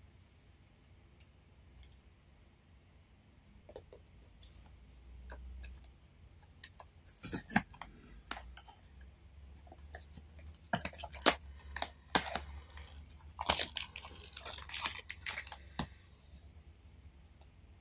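Toy blind-box packaging being opened by hand: quiet at first, then from about seven seconds in, repeated crackling tears and rustles of the cardboard box and its plastic wrap, busiest in the last several seconds.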